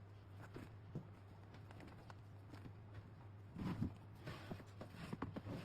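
Faint scattered knocks and clicks over a low steady hum, with a cluster of louder knocks about three and a half seconds in and more near the end.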